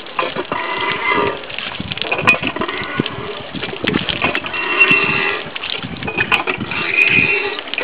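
Cast-iron hand pump being worked by its lever handle: a squeaky, pitched creak comes with each stroke, about every two seconds, along with clanks from the mechanism. Water splashes from the spout into a concrete basin.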